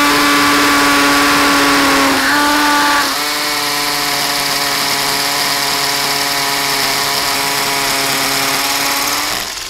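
Bosch GSB 120-LI 12 V cordless impact drill drilling into an aerated concrete block: a steady motor whine that dips briefly in pitch about two seconds in, runs on, and stops near the end.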